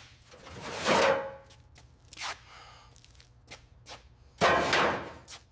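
Scattered knocks and clicks, with a loud rushing whoosh about a second in and another near the end.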